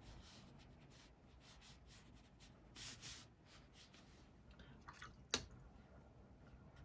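Faint scratching of drawing strokes on paper, with a louder stroke about three seconds in and a single sharp tap a little past five seconds.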